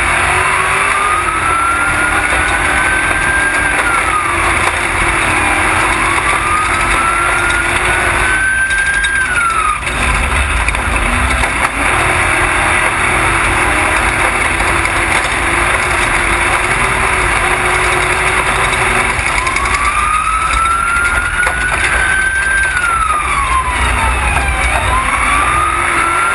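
Off-road race truck's engine under hard throttle, its pitch climbing for a few seconds and then falling away several times as it revs and shifts, with a steadier stretch in the middle. Heavy wind noise on the hood-mounted microphone.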